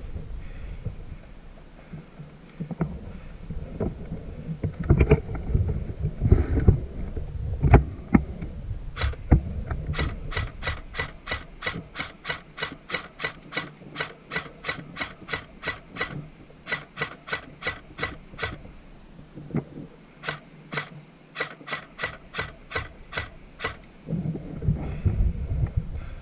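Airsoft high-capacity magazine being wound by its ratchet wheel: a long run of evenly spaced ratcheting clicks, about three a second. The clicks stop briefly and then resume for a few more seconds. Before the clicking there is handling rustle and a few thumps.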